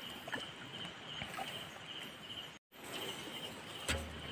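Hands digging and sloshing in muddy water at a mud crab burrow, with small splashes and clicks, over a steady pulsing insect trill. The sound drops out for a moment a little past halfway, and there is a low thump near the end.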